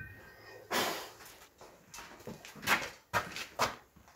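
A propane gas bottle with its torch hose being handled and carried: a series of about six short rustling, scraping knocks.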